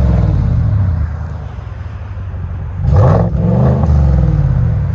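2019 GMC Sierra Denali's 6.2-litre V8 with the muffler deleted (3-inch pipe, factory resonators kept) being revved while parked. One rev dies back to idle in the first second, and a second rev climbs about three seconds in and falls away. The revs are held to around 4,000 rpm by the factory rev limiter.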